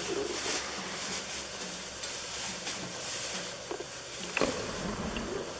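Steady hiss at a gas stove where cooking oil is heating in a pan. A light knock comes about four seconds in.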